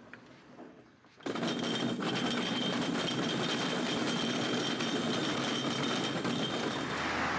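Small wheels of a hand cart rolling over tiled paving, a steady rattling rumble that starts abruptly about a second in as the cart is pushed off, with a thin high whine running along with it.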